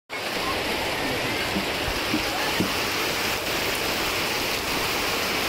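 Steady rain falling: an even, unbroken hiss of water.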